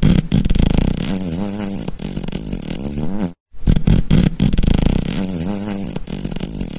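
Silly cartoon-style fart sound effect: a long, sputtering fart whose pitch wobbles up and down, played twice in a row with a brief break about three seconds in.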